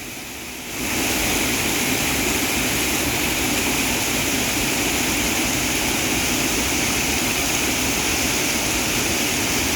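Waterfall's loud, steady rush of falling water. It comes in suddenly, under a second in, after a quieter start.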